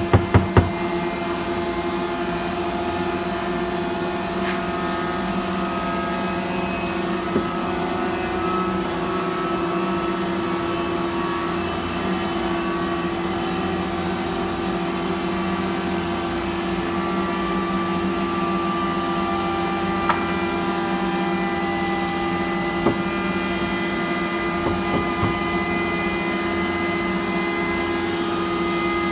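Steady hum of workshop machinery running, holding several fixed tones, with a cluster of sharp clicks at the very start and a few single clicks and taps later on.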